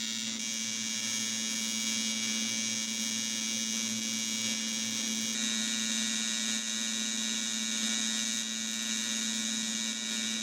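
AC TIG welding arc on aluminium buzzing steadily while a seam is welded, its pitch shifting slightly about halfway through.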